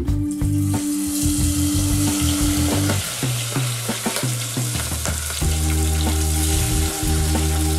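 Battered broccoli tempura sizzling as it deep-fries in hot oil, a dense crackling hiss that breaks out just after the start, over background music.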